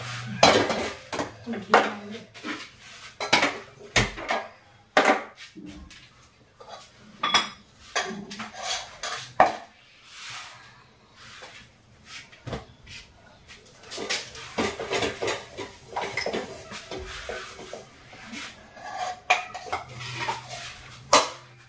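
Kitchen utensils, pots and containers clinking and knocking as they are handled on the counter and stove: scattered sharp clinks at uneven intervals, a few ringing briefly like metal.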